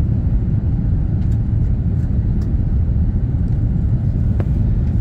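Steady low cabin rumble of an Airbus A330-200 on approach to land: engine and airflow noise heard inside the passenger cabin, with a few faint clicks.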